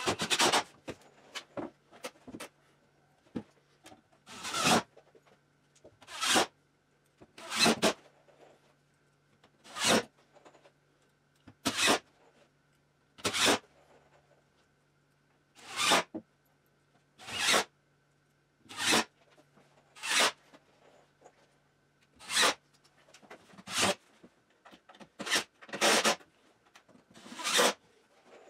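Cordless drill driving screws into a plywood panel in a string of short bursts, about one every second and a half.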